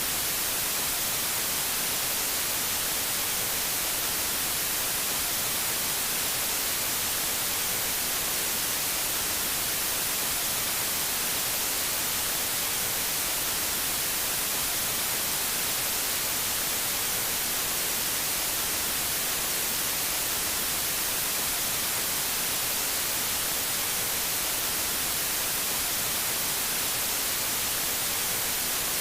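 Television static: a steady, even hiss, brightest in the high end, with no change in level.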